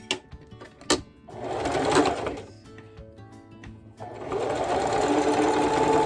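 Domestic electric sewing machine stitching in two runs: a short one about a second and a half in, and a longer one from about four seconds in. A couple of sharp clicks come before the first run, and background music plays throughout.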